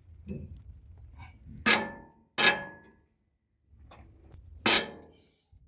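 Rusted track adjuster bolt on a Struck Magnatrac Hydro 5000 creaking as a wrench forces it round: three loud, sharp metallic creaks with a brief ringing tail, the middle two close together, as the penetrant-soaked threads stick and slip.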